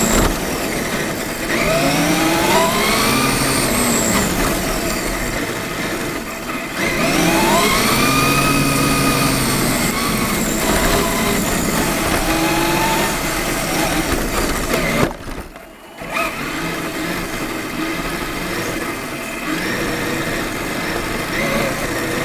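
Traxxas E-Maxx electric RC monster truck's motor and drivetrain whining up and down in pitch as the throttle is worked, heard from on board the truck. The sound drops away briefly about two-thirds of the way through, then picks up again.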